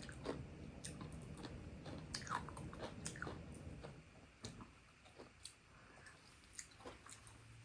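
Close-miked chewing and biting of kimchi, with small crunches and mouth clicks, growing sparser and quieter after about four seconds.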